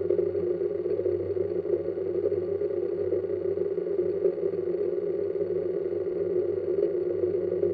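Brushless motors and propellers of a multirotor drone spinning steadily at idle while it sits on the ground: an even, unchanging hum.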